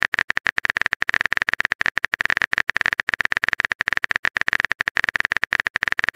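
Typing sound effect of a texting app: rapid, dense tapping clicks, many a second, without a pause.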